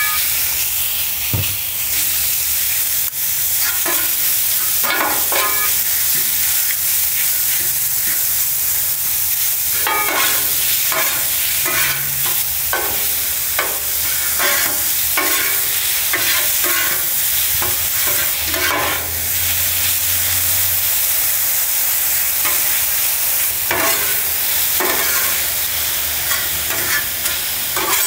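Diced steak searing and sizzling steadily on a smoking-hot steel flat-top griddle, with repeated scrapes and clicks of a metal spatula and fork against the griddle surface as the meat is spread and turned.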